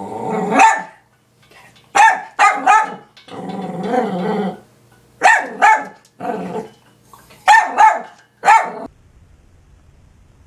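Dachshund barking in short groups of two or three sharp barks, with stretches of low growling between them. The barking stops about nine seconds in.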